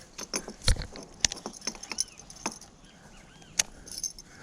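Scattered light clicks, clinks and small knocks from handling a freshly caught bass and unhooking the buzzbait, the strongest knock a little under a second in.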